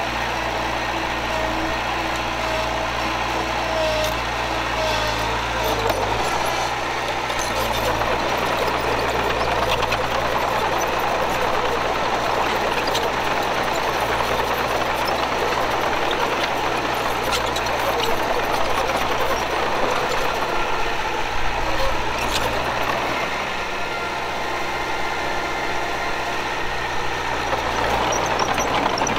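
Heavy diesel earthmoving machinery running steadily under work, with faint whining tones in the first few seconds and again near the end.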